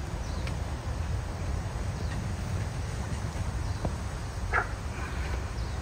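Outdoor riverbank ambience: a steady low rumble, with one short bird call about four and a half seconds in and a fainter one just after.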